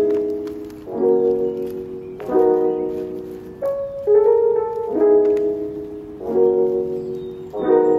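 Background music: soft piano chords struck at an even pace, a new chord about every second and a quarter.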